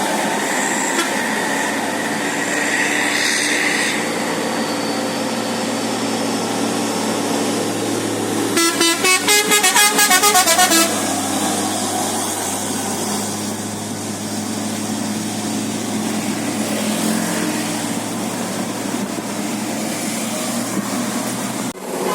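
Bus engine running with a steady low hum. About eight seconds in, a Basuri telolet multi-tone musical horn sounds a quick run of about ten short notes lasting a couple of seconds.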